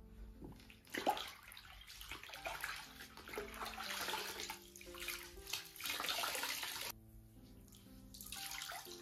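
Water sloshing and splashing in a plastic bucket as a microfiber mop pad is dunked, scrubbed and wrung out by hand. It starts about a second in, stops suddenly about seven seconds in, and comes back briefly near the end, over soft background music.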